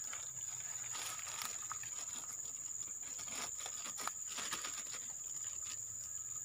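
Steady high-pitched drone of insects such as cicadas or crickets, with scattered rustling and crinkling as a clear plastic bag is handled.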